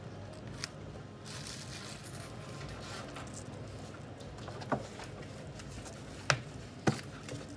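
Clear plastic film crinkling and rustling as it is stretched and pressed over a plastic bubble tea cup. Three sharp knocks follow in the second half, the last two the loudest and about half a second apart.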